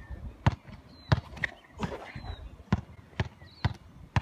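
Basketball being dribbled on the court: a run of sharp bounces, two in the first second or so, a pause, then four more at about two a second near the end.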